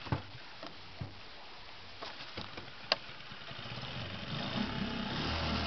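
Small outboard motor being pull-started: several sharp clacks as the starter cord is yanked, then the engine catches about four seconds in and settles into a steady idle.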